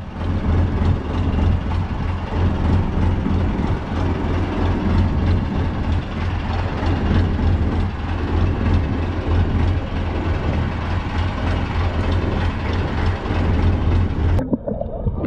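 A fishing boat's engine running steadily, a low hum under a wash of wind and water noise. The sound changes abruptly near the end.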